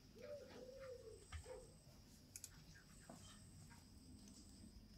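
A dove cooing faintly: one three-part coo in the first second and a half. After it come a few faint light clicks.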